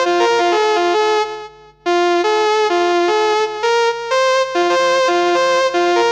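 Electronic keyboard playing a melody of held notes. The notes stop for about half a second at around a second and a half in, then start again.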